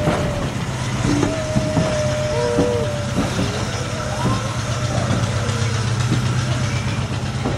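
Railway coaches rolling slowly past over the track, their wheels squealing on the rails in several thin, wavering whines that come and go, over a steady low rumble.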